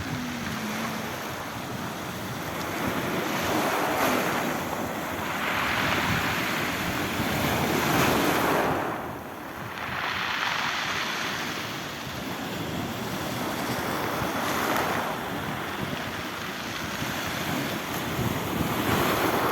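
Black Sea waves breaking and washing up on the shore, swelling and ebbing every few seconds, with wind noise on the microphone.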